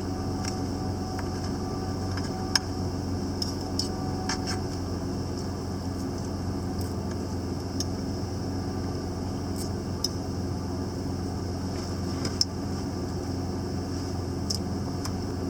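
1995 Ford Ranger pickup idling with a steady drone, with a few light clicks and taps scattered over it.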